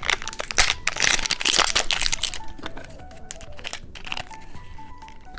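Plastic candy packaging crinkling as it is handled, busiest in the first couple of seconds, with a light tune of background music.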